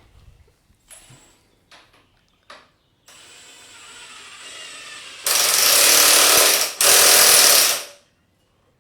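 Motorcycle lift stand raising a Yamaha WR250F dirt bike. A few clicks and knocks come first, then a steady mechanical hum builds from about three seconds in, and it ends in two loud stretches of rough mechanical noise, the first about a second and a half long and the second about a second.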